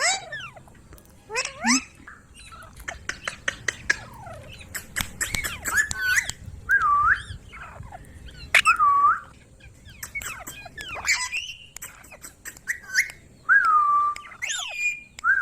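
Indian ringneck parakeet calling: a rapid run of sharp clicks and squawks, then a series of short curved whistled calls repeated every second or so.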